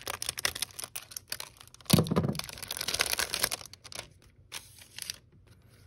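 Clear plastic wrapper of a baseball-card rack-pack cell crinkling as it is cut with scissors and pulled open by hand, with a louder rip about two seconds in. The rustling settles after about five seconds.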